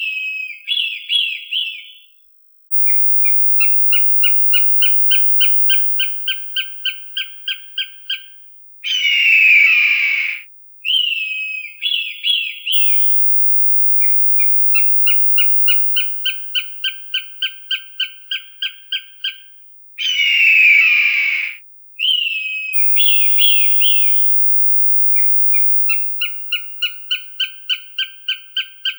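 Recorded hawk calls on a loop: a harsh scream about a second and a half long, a few short falling whistled calls, then a long fast series of repeated call notes, about three or four a second. The sequence comes round about every eleven seconds.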